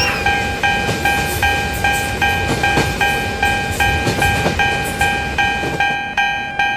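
Japanese railroad level-crossing warning bell ringing in a steady, even rhythm of about two and a half strokes a second, over the rumble of a passing train.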